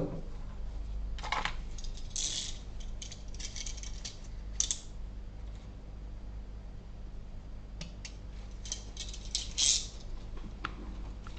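Small metal tools clicking and scraping lightly against each other and the work surface at an electronics repair bench, in a few scattered clusters of quick sharp clicks, over a steady low hum.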